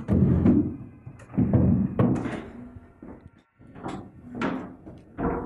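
A series of dull knocks and thuds, about six in all, the loudest ones in the first two seconds and fainter ones near the end.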